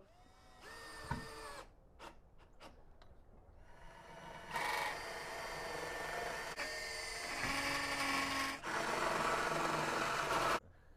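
Power drill driving screws out to take off a screen door's closer: a short whir about a second in, then a longer run from about four and a half seconds in until near the end, briefly pausing once.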